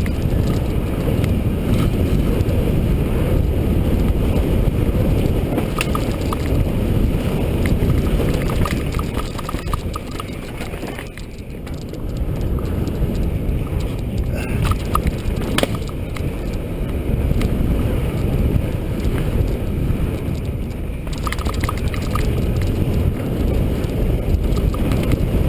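Mountain bike rolling down a dirt trail: a steady rumble of tyres and wind on the microphone, with scattered clicks and rattles from the bike. It eases briefly about 11 seconds in.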